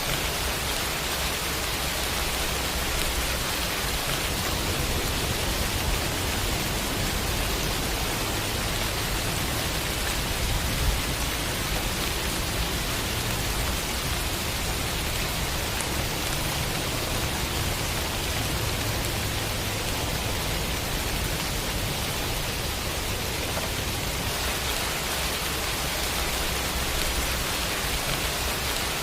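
Steady heavy rain falling, an even hiss with no change in level.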